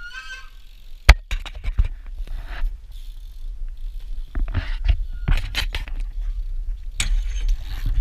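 BMX bike being ridden, rattling and clattering, with a run of sharp knocks (the loudest about a second in) over the rumble of wind on the helmet camera.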